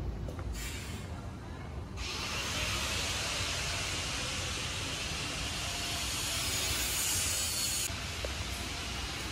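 A steady hiss that starts suddenly about two seconds in and stops suddenly near the end, with a shorter, fainter hiss just before it, over a low street rumble.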